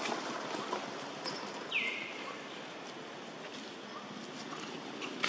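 A short high call that drops quickly and then holds a steady pitch, heard about two seconds in and again at the end, over a steady outdoor background hiss.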